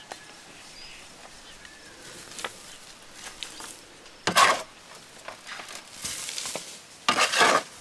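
A shovel scooping and throwing loose soil into a wooden raised bed: two loud, gritty scrapes, one about four seconds in and one near the end, with thrown soil landing in between.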